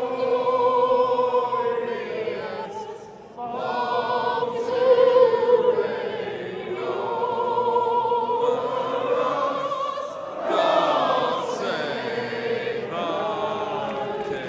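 Operatic singing in long held notes with a wide vibrato, with a short break about three seconds in, performed as a pre-match tribute to Queen Elizabeth II.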